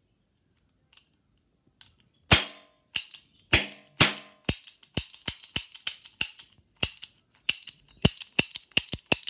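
Toy cap gun firing caps. A few faint clicks come first, then about two seconds in a string of sharp cracks: single shots about half a second apart, then a rapid run of snaps at about three a second.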